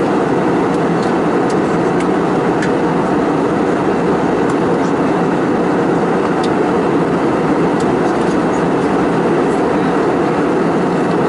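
Steady cabin noise inside an Airbus A319 airliner in flight: the constant sound of airflow and engines heard from a window seat over the wing, with a few faint ticks.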